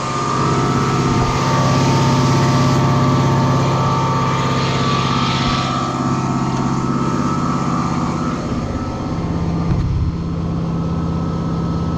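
PTO-driven air compressor running on a Ford F550 service truck, with the truck's diesel engine running under it; a steady mechanical drone. About ten seconds in, the level dips and then the note steps up a little higher.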